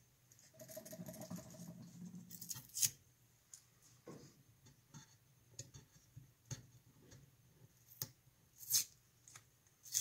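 Blue painter's tape being peeled off a wooden rifle stock: small crackling rustles and scratches, with a few sharper rips about three seconds in and again near the end.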